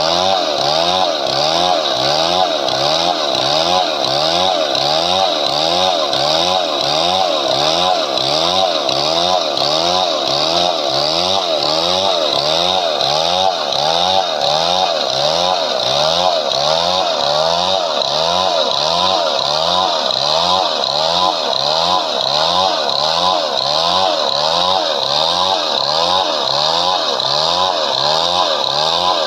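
Chainsaw running under load as it cuts through a padauk log, its engine note rising and falling in a steady rhythm.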